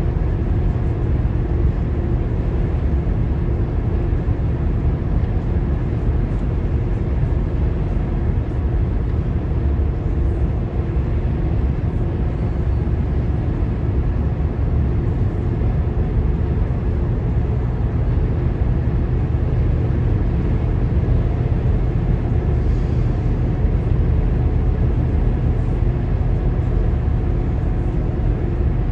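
Steady road noise of a car cruising at highway speed, heard from inside the cabin: an even low rumble of tyres and engine with a faint steady hum above it.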